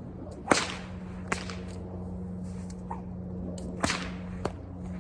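An 8-foot bullwhip cracking four times in two quick pairs, the two cracks of each pair less than a second apart, as it is swung back and forth in a volley. The first crack is the loudest.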